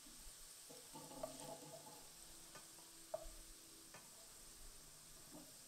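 Faint sizzle of hot oil in a wok, with a few light clicks as a wooden spoon scoops fried potato cubes out of it into a steel bowl.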